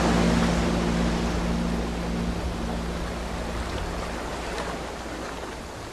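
The song's last chord fades out over about two seconds, leaving a steady wash of ocean surf.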